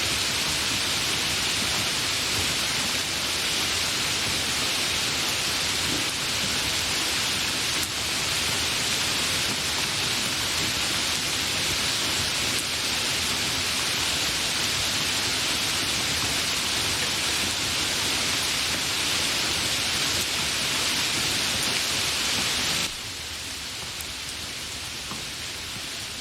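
Continuous rain, a steady even hiss. Near the end it drops suddenly to a softer, duller rain sound.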